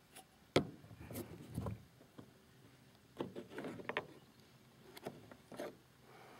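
Plastic dome-light lens cover being pried off its housing by hand: a series of light clicks and scrapes, the sharpest about half a second in and a cluster around three to four seconds in.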